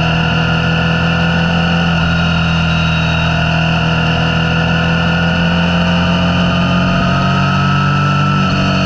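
Motorcycle engine running at a steady cruising speed along with road and wind noise, a continuous drone whose pitch drifts only slightly.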